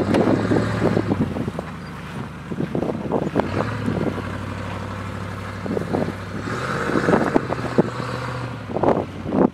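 Range Rover P38 engine running steadily as it drives across a grassy slope, its note rising a little about two-thirds of the way through. Wind gusts buffet the microphone, loudest at the start and near the end.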